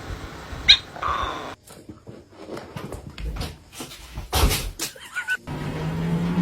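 A short animal cry, then a run of knocks and thumps, the loudest about four and a half seconds in. Near the end a steady low hum starts.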